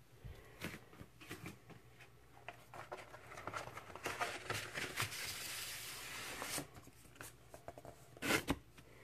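Handling a vinyl LP's gatefold cardboard jacket: light taps and rustles, then a paper-on-cardboard slide lasting about two seconds as the record in its inner sleeve is drawn out. A louder brief rustle comes near the end.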